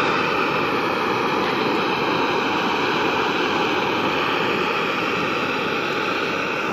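Jetboil gas canister stove burner running at full flame, a steady rushing hiss, under a pot of water at a rolling boil.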